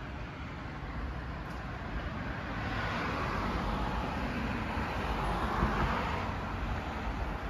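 A car passing on the road, its tyre noise swelling for a few seconds and then fading, over a steady low rumble.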